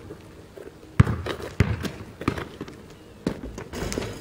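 A basketball bouncing on asphalt: a series of hard, irregularly spaced thuds, the loudest about a second in.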